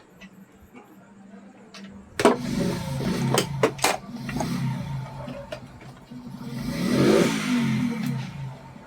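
Repaired ceiling fan switched on about two seconds in and running: a steady low motor hum with a few sharp clicks early on, and a rushing of air that swells near the end.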